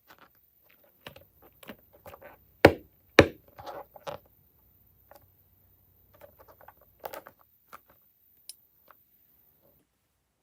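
Hands working slime and its containers up close: scattered small clicks and sticky crackles, with two sharp knocks about half a second apart a little over two and a half seconds in, then only sparse faint ticks.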